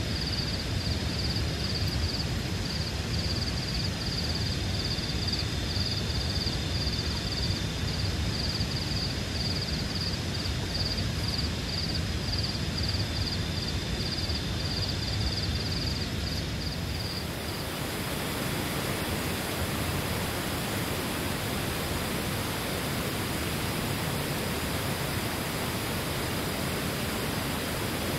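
Steady hiss of heavy rain, with a high, evenly pulsing trill over it for the first two-thirds. About two-thirds of the way in the trill stops and the rain hiss turns brighter.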